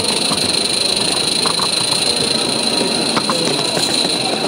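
16mm-scale garden-railway locomotive running along its track, heard from a camera riding on it: a steady mechanical running noise with a high, even whine and a few light clicks from the wheels on the rails.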